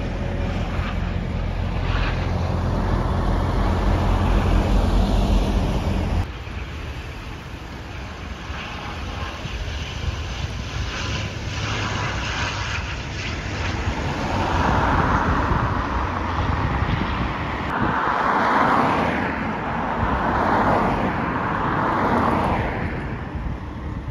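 Aircraft and road traffic noise at an airport perimeter. A low, steady engine drone stops abruptly about six seconds in and gives way to a fainter rumble. In the second half, several swells of rushing noise rise and fall.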